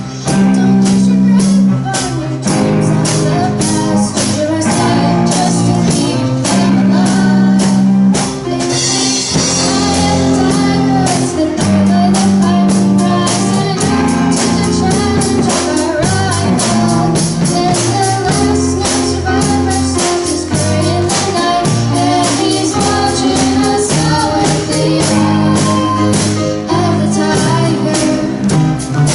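A student rock band playing live: drum kit beating steadily, bass and electric guitar, with a voice singing over it and a cymbal crash about nine seconds in.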